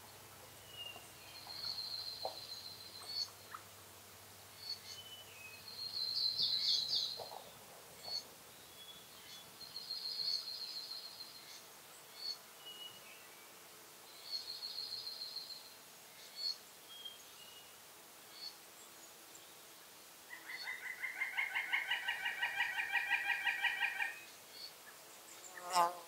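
Birds singing: short high trilled phrases repeating every few seconds among scattered chirps. Near the end comes a louder, rapid chattering call lasting about three and a half seconds.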